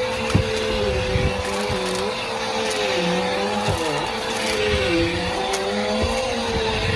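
Vacuum cleaner with a brushroll running steadily, its motor whine holding one pitch while a second tone dips and recovers every second or so. Gritty debris crunches and crackles in scattered clicks as it is sucked up.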